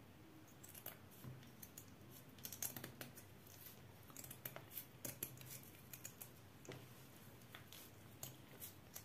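Faint, irregular snips of kitchen scissors cutting the fins off a raw hake.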